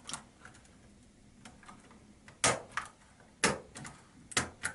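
Dell Vostro 3560 laptop keyboard being pressed down into its frame: a run of sharp plastic clicks as it snaps into place. A few faint ones come first, then about six loud ones in rough pairs in the second half.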